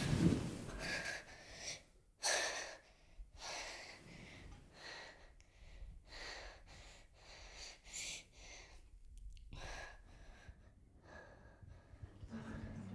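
A girl breathing in quick, shaky gasps, a short hiss every half second to a second, the loudest about two seconds in and the later ones fainter.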